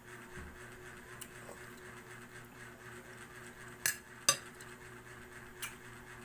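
A few sharp clinks of an eating utensil against a plate, the two loudest close together about four seconds in, over a faint steady hum.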